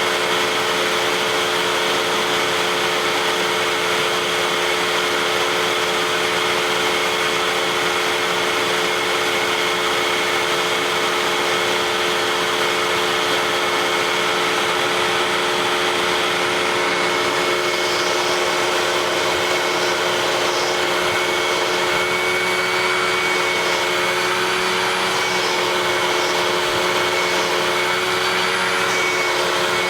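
Vacuum cleaner running steadily, a constant motor hum with a steady whine over it. Faint short clicks come in over the second half.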